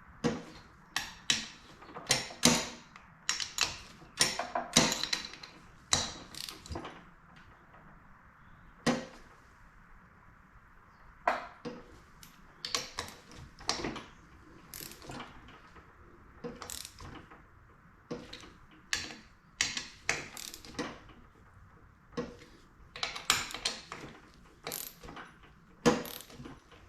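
Ratchet wrench clicking in repeated short runs with pauses between, tightening the crankcase bolts on a Yamaha YZ125 engine case.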